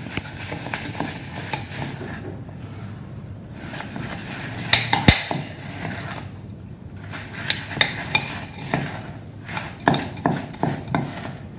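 A spoon stirring rice bubbles into melted chocolate in a microwave container, making irregular scrapes and clicks against the container. There is one sharp knock about five seconds in, and the clicks come more often toward the end.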